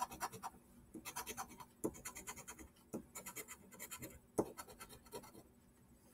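A scratch-off lottery ticket being scratched: quick runs of short scraping strokes with brief pauses between the runs.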